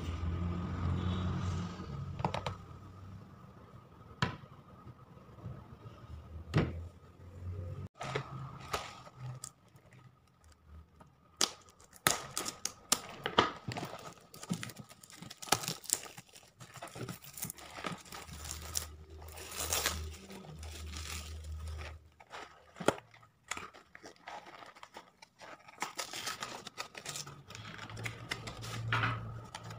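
Cardboard instant-noodle box being handled and opened on a plate: irregular crinkling, tearing and clicking of cardboard and paper, busiest in the second half, with a few low bumps of handling.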